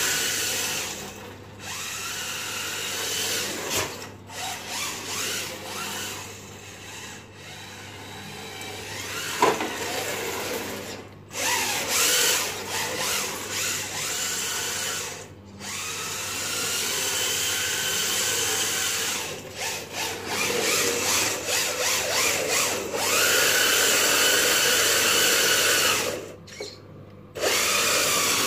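FTX Banzai 4WD RC drift car's brushed electric motor whining in throttle bursts, its pitch rising and falling as it speeds up and slows, with tyre and drivetrain noise on block paving. The sound drops out briefly several times when the throttle is released.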